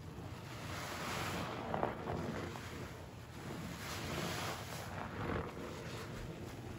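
A yellow foam bath sponge loaded with soapy pine-cleaner suds, squeezed and kneaded by gloved hands: wet squelching and crackling foam that swells with each squeeze.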